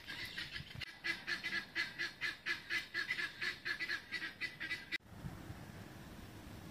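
A bird calling in a fast run of repeated honks, about four or five a second; it cuts off abruptly about five seconds in, leaving steady wind noise on the microphone.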